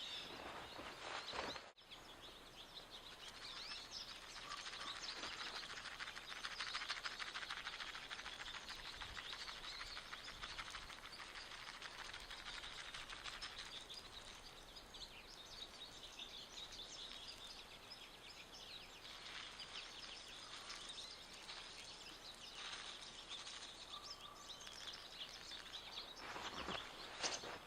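A flock of small songbirds at winter feeders chirping and twittering over one another in a faint, continuous chatter, busiest in the first half.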